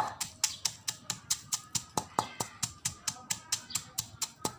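Pestle pounding chilies and garlic in a mortar: rapid, even strikes, about five a second.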